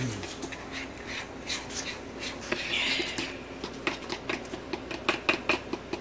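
Pancake batter being stirred by hand in a plastic mixing bowl, the utensil clicking against the bowl's side in quick, uneven taps that come faster in the second half.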